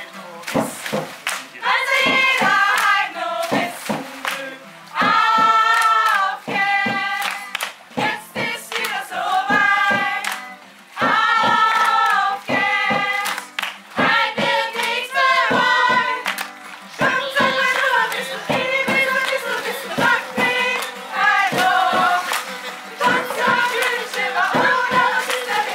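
Youth choir singing together in phrases, with sharp hand claps running through the song.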